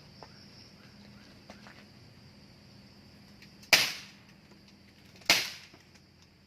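Two pistol shots from a Glock 19, about a second and a half apart, each with a short trailing echo.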